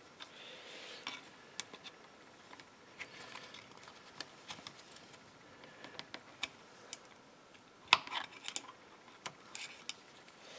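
Small clicks, taps and scrapes of a screwdriver and plastic parts being worked into a chainsaw's plastic housing, with a cluster of sharper clicks about eight seconds in.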